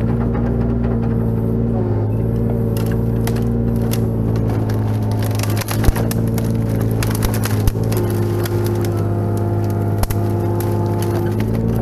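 Kubota KX-018 mini excavator's diesel engine running steadily under hydraulic load, its pitch stepping a few times as the controls are worked. Several sharp cracks of wood and brush breaking, the loudest about six seconds in.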